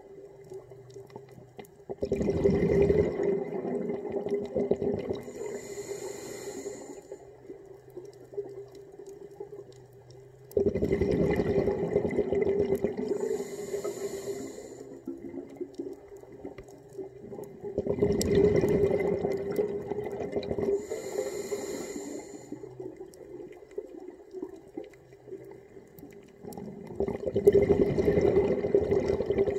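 A scuba diver breathing through a regulator underwater: a high hiss on each inhale, then a loud rush of exhaled bubbles, in a cycle about every eight seconds, with four exhales and three inhales.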